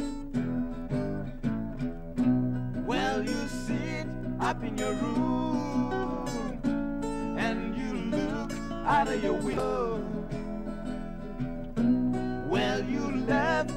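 Music from an early-1970s demo recording: strummed acoustic guitar chords, with melodic lines sliding in pitch over them, in a passage without words between sung lines.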